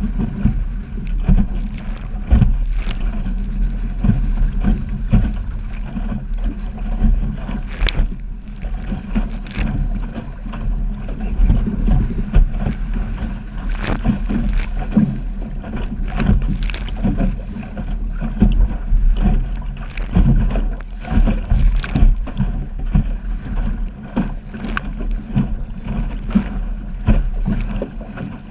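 Wind buffeting the microphone aboard a small sailing dinghy under way in chop, a heavy steady rumble. Water splashes and slaps against the hull, with frequent short knocks as the boat works through the waves.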